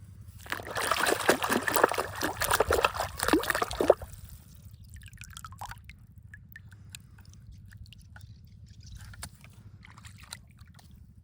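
Wet sloshing and splashing for about three and a half seconds, then scattered small drips and clicks.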